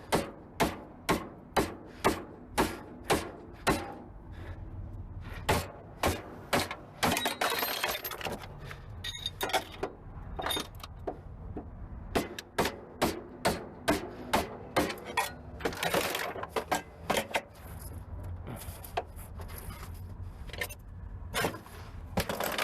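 Hand tools working on a car being taken apart: a steady run of sharp knocks, about two a second, for the first few seconds, then irregular clicks and knocks with some rustle of handling.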